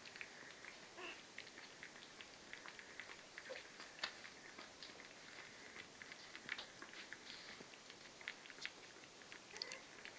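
Three-week-old Lhasa Apso puppies toddling over spread newspaper: a quiet, continual patter of small ticks and paper crackles from their paws. A couple of faint puppy squeaks come about a second in and near the end.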